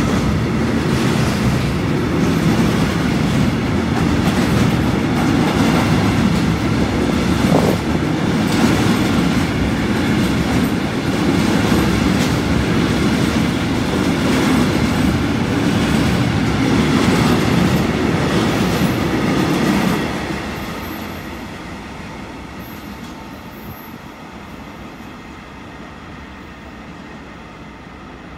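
Freight train of intermodal wagons carrying swap-body trailers running through the station close by, wheels clattering over the rails. About twenty seconds in the last wagon passes and the sound dies away.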